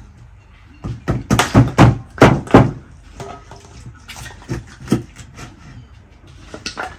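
Cleaver chopping fish on a wooden cutting board: a quick run of about seven sharp knocks starting about a second in, then a few softer, scattered chops.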